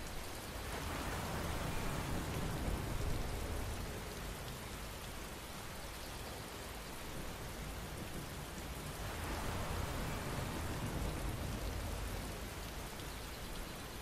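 Steady rain falling, swelling louder twice, about a second in and again about nine seconds in, with a low rumble under each swell.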